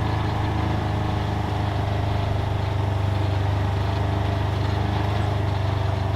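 UTV engine running steadily at an even speed, with no revving.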